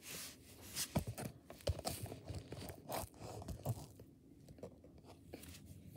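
Faint, irregular clicks, taps and rustles of plastic toys being handled as a doll is swung on a toy playground swing. They thin out after about four seconds.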